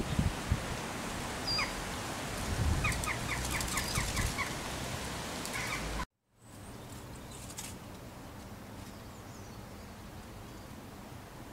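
Outdoor ambience with birds calling over a steady hiss: a quick run of repeated chirps in the first half, then, after a sudden cut about six seconds in, a quieter stretch with fainter calls.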